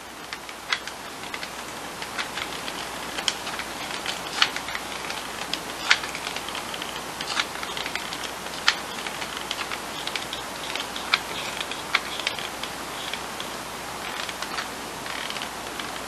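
Irregular light clicks and taps from a hot glue gun being squeezed and craft pieces being handled, over a steady hiss.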